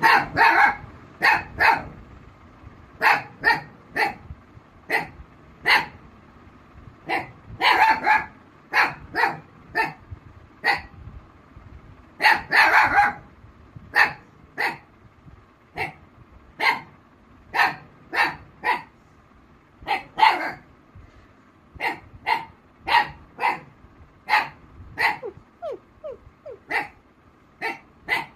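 A young black mouth cur barking over and over, short sharp barks about one a second, with quick runs of several barks a third of the way in and again near the middle.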